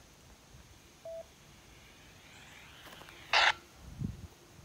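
Baofeng UV-5R handheld radio's speaker after a repeater call: a single short beep about a second in, the repeater's courtesy tone after unkeying. Near the end comes a brief burst of static as the repeater drops and the squelch closes.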